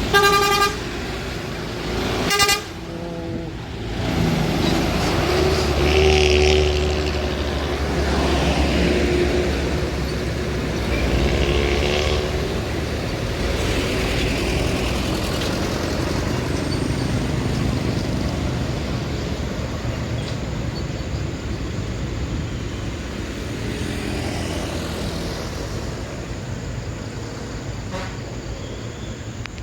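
Bus horn blasts twice in the first few seconds, then a heavy diesel bus passes with a loud, deep exhaust rumble that is loudest from about 5 to 12 seconds in and slowly fades into road noise.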